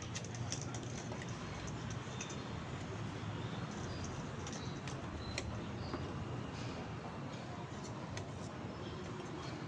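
Steady low hum and hiss with scattered light clicks and ticks, and a few short high chirps.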